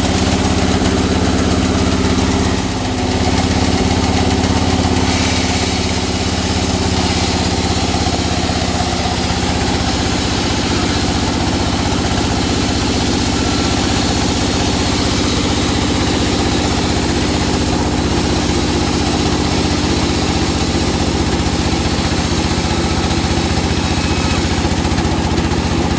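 Sawmill engine running steadily while the saw cuts a teak log. The level dips briefly about three seconds in, and a high cutting hiss joins the engine from about five seconds on.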